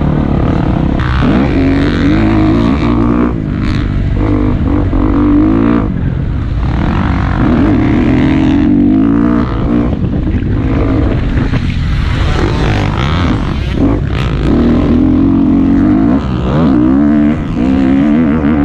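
Dirt bike engine heard on board while riding a motocross track, revving up and easing off again and again as the rider accelerates, shifts and rolls off the throttle, with brief drops in engine note every few seconds.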